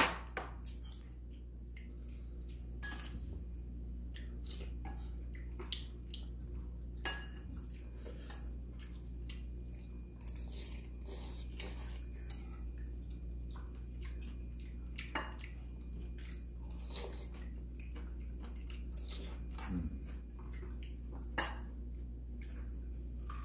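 Spoons, chopsticks and forks clinking now and then against bowls and plates during a meal, with chewing and the slurping of ramen noodles.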